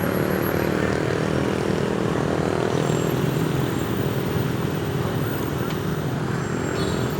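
A motor vehicle's engine running at a steady pitch, with no siren sweeping.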